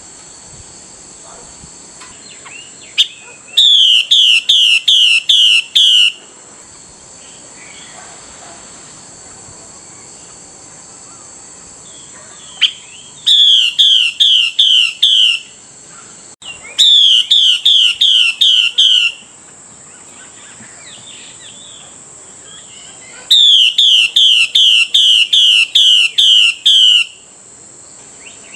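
Female Chinese hwamei (Garrulax canorus) calling in four loud runs of repeated down-slurred notes, about three notes a second, with pauses of several seconds between runs; this is the female's call that draws and stirs up males.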